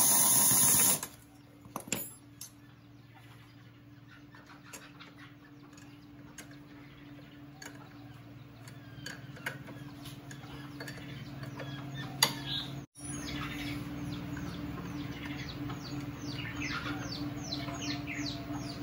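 A pneumatic impact wrench runs for about a second on the clutch bolts of a Yamaha Y15ZR. After it come light metal clicks from hand tools over a steady low hum, with rapid, quick falling bird chirps building up over the last few seconds.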